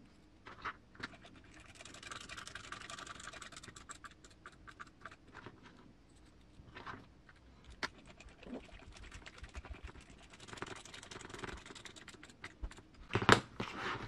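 Small RC gearbox parts being handled and fitted by hand: scattered light clicks and taps, a rustle about two seconds in, and a sharper knock near the end.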